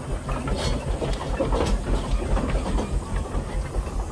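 Steam road locomotive, such as a traction engine, running with a steady low rhythmic beat.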